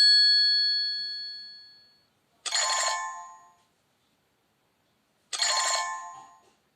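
Preloaded Nokia Lumia 521 tone: a bright electronic chime fades out over the first two seconds, then a short chime sounds twice, about three seconds apart, each ringing away within about a second.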